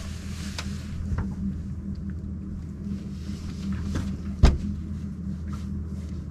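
Steady low hum of a boat's bow-mounted electric trolling motor running, with a few light knocks on the deck and one sharp thump about four and a half seconds in.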